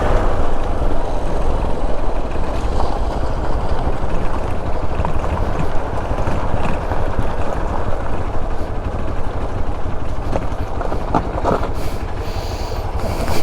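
Motorcycle riding along a rough, stony off-road dirt track: engine running under a steady low rumble, with a couple of sharp knocks about eleven seconds in.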